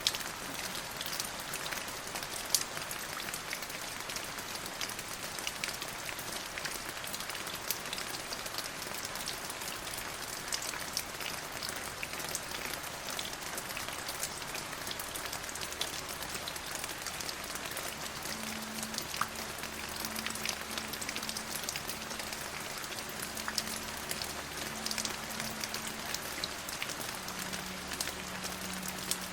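Steady rain falling, with many separate drops striking close by. A faint low hum joins in a little past the middle.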